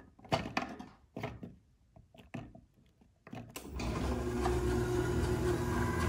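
Several quick clicks of keypad buttons being pressed to enter a code. About three and a half seconds in, a Chamberlain garage door opener starts up and runs with a steady motor hum as it raises the door.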